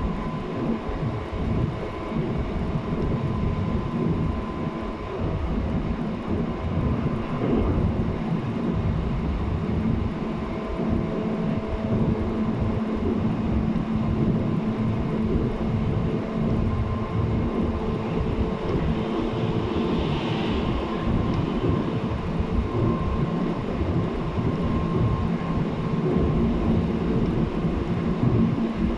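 JR East 719 series electric train running at speed, heard from inside the car: a steady rumble of wheels on rail with a low, even hum. A short hiss comes about twenty seconds in. This unit is one known for an odd running noise.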